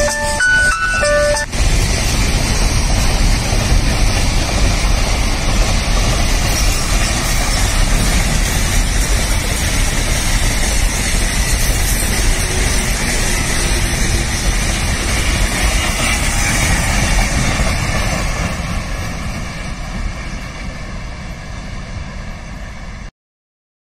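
Loaded container freight wagons rolling past on the rails, a steady rumble and clatter of wheels on track that fades over the last few seconds as the end of the train draws away, then cuts off suddenly.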